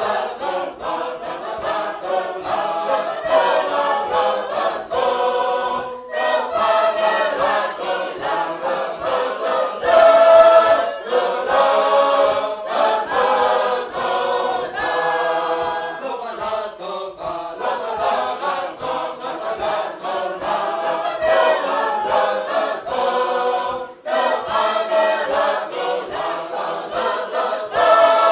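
A Sacred Harp shape-note group singing unaccompanied in full four-part harmony, loud and continuous, with short breaks between phrases about six seconds in and again near the end.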